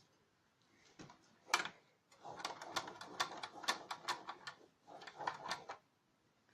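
A kitchen utensil clinking and scraping against a metal pan in quick runs of clicks, after two single knocks.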